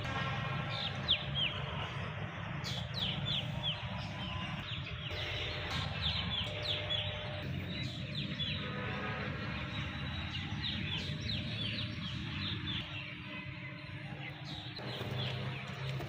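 Birds chirping, many short quick chirps throughout, with chickens clucking among them, over a steady low hum.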